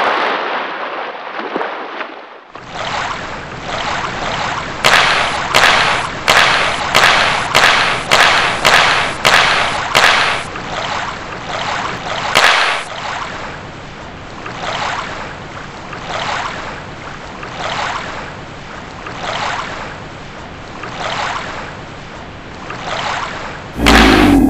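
Rhythmic water splashing and swishing, about two strokes a second at first, then slowing to about one a second, like swimming strokes. A loud crash comes right at the end.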